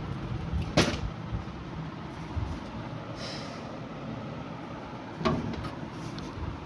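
Two sharp metallic knocks about four and a half seconds apart, from work on a window air conditioner's rusted outer body where its fan blade was striking the swollen metal.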